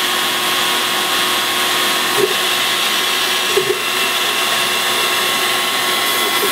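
WidgitMaster Midi CNC machine running steadily as it cuts into particle board, a constant whine over a rushing noise, with a couple of brief chirps about two seconds in and again past three and a half seconds.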